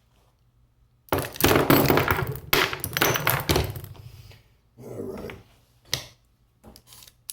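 Hard objects being handled and clattering loudly for about three seconds, starting about a second in. Then a few separate knocks and clicks.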